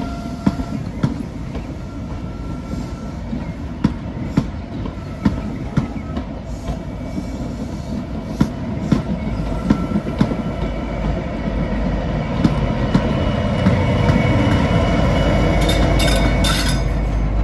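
A rake of Mark 3 coaches rolls slowly past, its wheels clicking over rail joints with an occasional light squeal. Near the end the rear Class 57 diesel locomotive, with its EMD 645 V12 two-stroke engine, draws level, and its engine rumble builds and grows louder.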